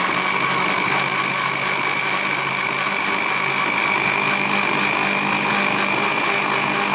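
Electric countertop blender with a plastic jar running steadily at speed, its motor giving an even whine as it purées boiled dried red chillies in water.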